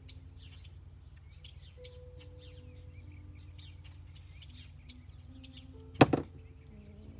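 A small mallet dropped by a cockatoo hits the floor with one sharp clatter about six seconds in, bouncing once just after. Faint high bird chirps run underneath.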